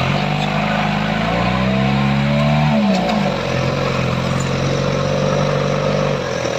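Off-road Jeep's engine revving under load, heard from inside the open cabin. Its pitch climbs for over a second, drops sharply about three seconds in, then holds steady.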